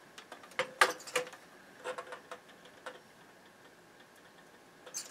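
Irregular light clicks and taps of meter test probes being touched to capacitor leads and solder points on a circuit board, during in-circuit ESR checks of the capacitors.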